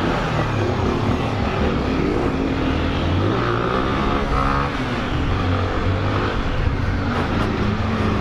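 Single-cylinder motorcycle engines running and revving on the move, their pitch rising and falling, as one bike is ridden behind another that is pulled up into a wheelie.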